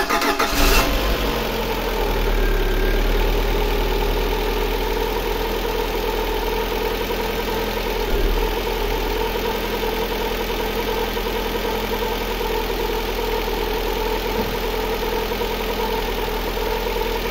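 Lada Granta's 8-valve four-cylinder engine just started for the first time after a rebuild, running a little faster for about a second and then settling into a steady idle, without knocking or ringing.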